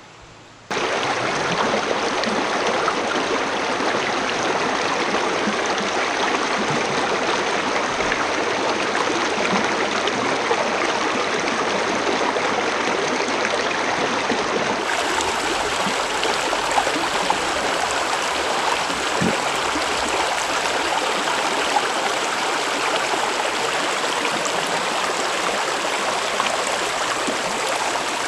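Hiji River water rushing and gurgling over rocks as a steady, loud flow. It starts abruptly about a second in, and its tone shifts a little about halfway through.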